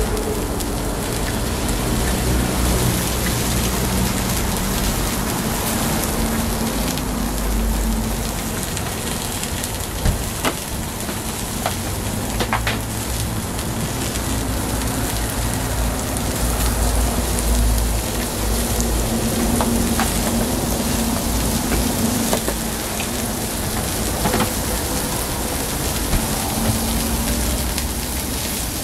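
Egg, bean sprouts and bacon frying on a hot oiled flat-top griddle: a steady, loud sizzle, with a few sharp clicks about ten and twelve seconds in.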